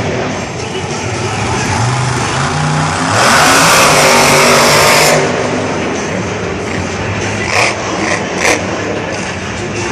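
Monster truck's supercharged V8 engine revving and accelerating across the dirt, rising in pitch and loudest from about three to five seconds in. Two sharp bangs come near the end.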